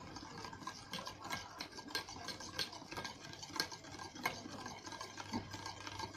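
A thick soap-and-shampoo slime mixture being stirred in a container, the stirring utensil clicking and scraping irregularly against its sides several times a second.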